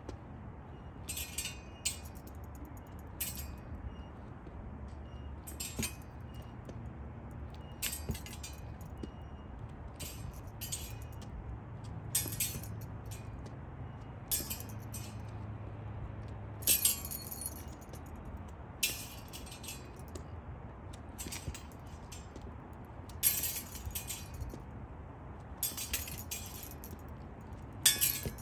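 Steel rapiers clinking: short, sharp metallic strikes at irregular intervals, about one every second or two, over a faint low hum.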